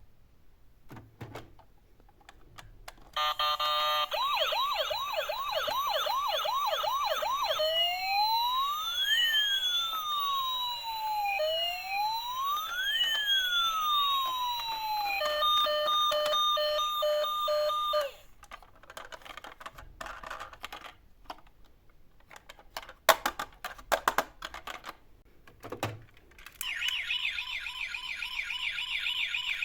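Electronic toy siren sounds from miniature emergency vehicles. First comes a fast warbling siren, then a slow rising-and-falling wail that sweeps up and down twice, then a short alternating two-tone beep. After a stretch of small clicks and knocks, a fast warble starts again near the end.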